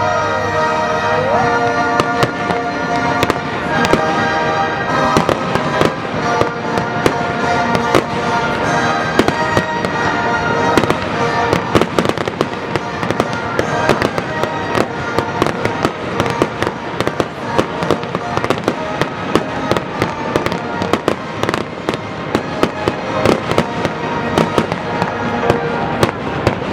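Fireworks display going off: a dense run of bangs and crackles throughout, with music playing alongside.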